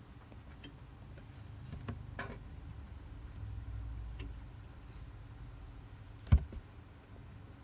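Scattered light taps on an iPad touchscreen during drawing, with one sharp knock about six seconds in that is much louder than the rest, over a low rumble.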